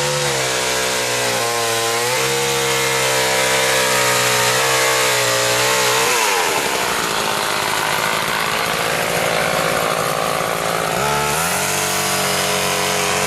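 Chainsaw engine running at high revs, then cutting into downed tree wood from about six seconds in, its note dropping and turning rough under load, and rising again about eleven seconds in.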